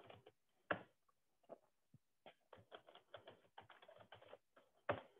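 Typing on a computer keyboard: a run of light, irregular key clicks, with louder strokes about a second in and near the end.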